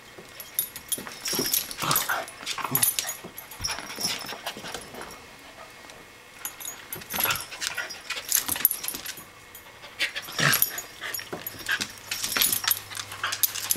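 A corgi and a cairn terrier play-wrestling on a vinyl floor: irregular scuffling and sharp clicks of paws and claws, with short dog vocal sounds now and then. There is a quieter lull about halfway through.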